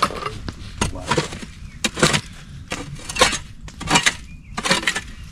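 A short-handled mattock repeatedly striking packed earth and stones, with sharp, irregular chopping hits about every half second to a second.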